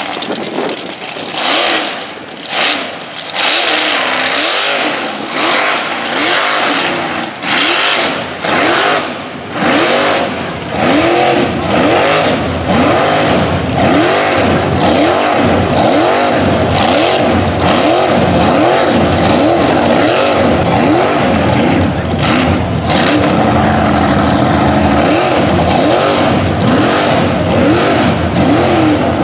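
Mud truck engine revving hard with the tires spinning as it churns through deep mud. For the first ten seconds or so it comes in short bursts on and off the throttle; after that it is held at high revs, with the pitch rising and falling about once a second as the wheels bite and slip.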